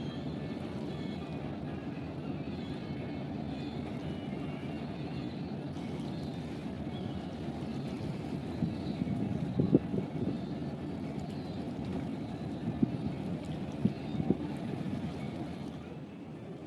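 Steady low rumble of a large passenger ship under way, with a few short knocks in the second half.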